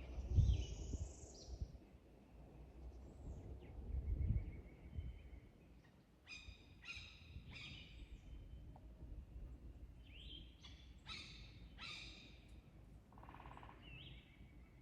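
A bird calling outdoors: two series of three short, high, downward-sweeping calls about half a second apart, with a few fainter chirps between them. Two low rumbles near the start are louder than the calls.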